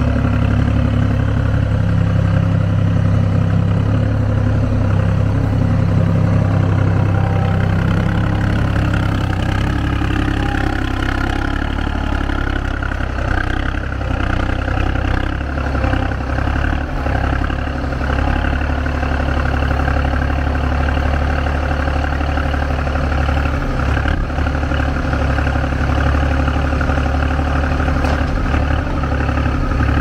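Engine of a Czechoslovak UNC-060 skid steer loader running steadily while it lifts and carries logs. The engine note changes about ten seconds in.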